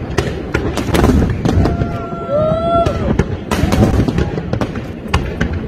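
Aerial fireworks bursting one after another: sharp bangs a fraction of a second apart over a continuous low rumble. A spectator's drawn-out exclamation rises and falls in the middle.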